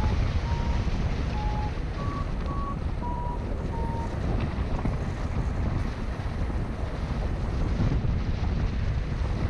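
Wind rushing over the camera microphone in paraglider flight. In the first four seconds a variometer gives about seven short beeps that shift up and down in pitch, the tone it makes when the glider is in lift.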